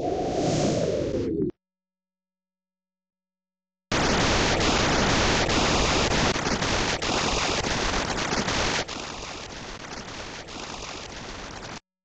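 Synthetic sound generated from a picture by image-to-sound conversion software, a harsh hissing noise. It stops about a second and a half in and, after two seconds of silence, returns as a dense static-like hiss with flickering crackles. About five seconds later it drops to a quieter level, then cuts off abruptly near the end.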